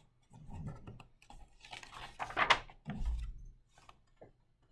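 A page of a picture book being turned by hand: paper rustling and swishing, with a soft low bump about three seconds in.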